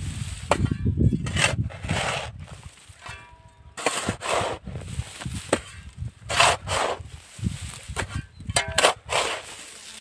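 Steel shovel blade driven into dry, grassy soil and scraped through it in repeated strokes, cutting an irrigation ditch, with earth thrown aside; now and then the blade rings with a short metallic clang.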